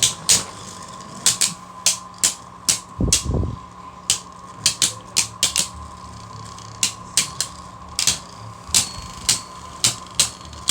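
Two Beyblade Burst spinning tops, Helios Volcano and Rage Longinus, spinning and clashing in a stadium: sharp clicking hits at irregular intervals over a faint steady whine, with a dull thump about three seconds in.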